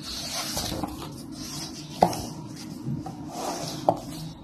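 Paper pages of a softcover textbook being turned, rustling and sliding against each other, with two sharp snaps of paper, about two seconds in and near the end.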